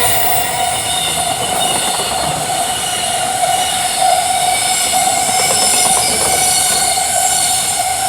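Freight train running through a station at speed, its wagons rolling past in a continuous loud rush with a steady high ringing tone.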